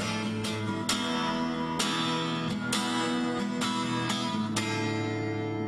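Instrumental music: guitar strummed in a steady rhythm over held chords, between sung verses of a song.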